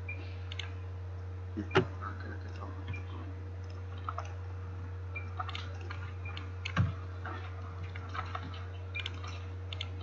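Scattered mouse clicks and small knocks while a mesh is set up on a computer, with two louder knocks about two seconds in and near seven seconds, over a steady low electrical hum.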